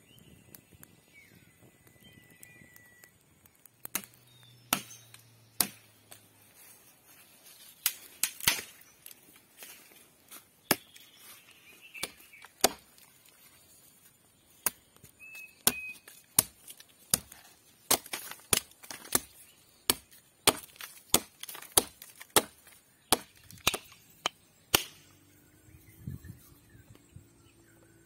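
A blade chopping into a thin green tree stem: a long run of sharp wooden chops, sparse at first and then quicker at about two a second through the second half, stopping shortly before the end. A faint bird whistle sounds near the start.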